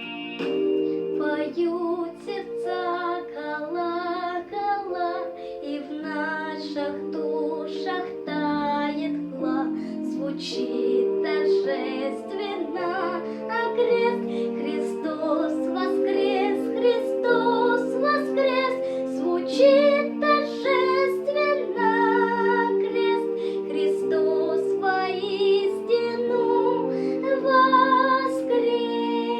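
A woman's voice singing a Russian Easter song over sustained chordal instrumental accompaniment, with vibrato on the held notes.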